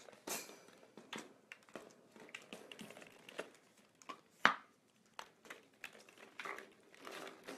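Hollow plastic ball-pit balls clicking and clattering irregularly against each other and the hardwood floor as a fox terrier puppy paws and noses through them, with one sharper knock about four and a half seconds in.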